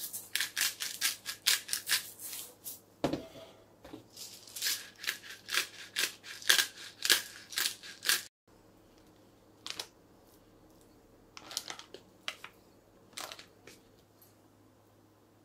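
Salt-and-pepper shaker shaken over raw chicken tenderloins: a rapid run of rattling shakes, about three a second, with a short break about three seconds in, stopping suddenly about eight seconds in. After that, a few faint scattered clicks and rustles.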